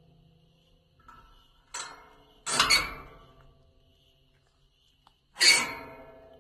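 Latch of an old metal gate being worked: a light click, a sharp clack, then a loud clank about two and a half seconds in and another near the end, each ringing briefly like struck metal.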